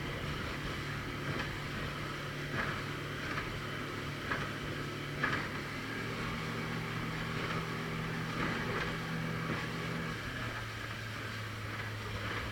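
Motorboat engine running steadily over wind and water noise, its note changing about six seconds in and again about ten seconds in.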